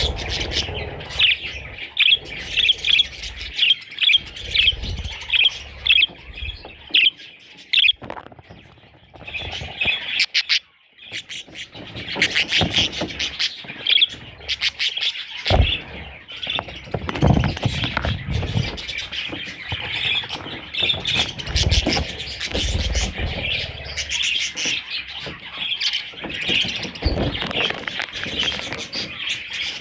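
Budgerigar chicks chirping in quick, repeated calls, with a brief lull about a third of the way in and a few low bumps later on.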